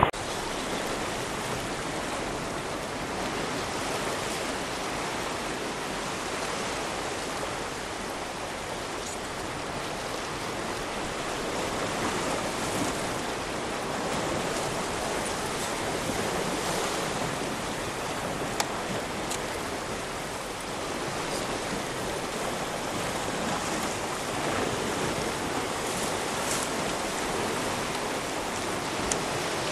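Sea waves washing against a rocky shore, a steady rush of surf.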